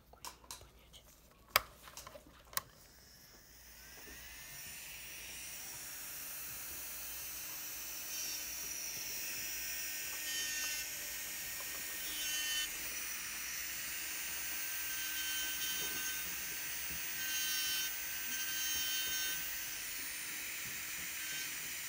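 A few sharp clicks as a burr is changed, then a Strong electric nail drill spins up about three seconds in and runs with a steady high whine. The whine swells at times as the cone-shaped burr works along the cuticle.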